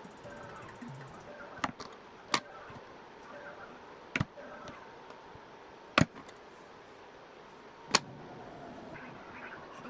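Hair tools being handled: five sharp clicks and clacks, a second or two apart, over a faint hiss.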